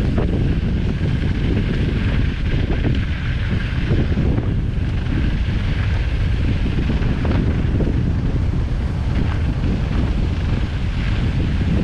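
Wind buffeting a mountain bike rider's action-camera microphone and knobby tyres rumbling over loose dirt and gravel on a fast descent, with scattered small knocks and rattles from the bike.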